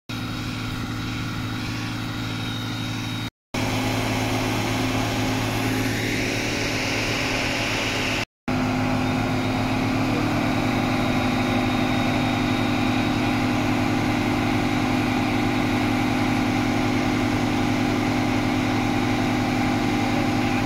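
Farm machinery engines running steadily at constant speed: the tractor and slurry pump of a drag-hose manure spreading setup, a level drone with no revving. Two short silent cuts about 3 and 8 seconds in.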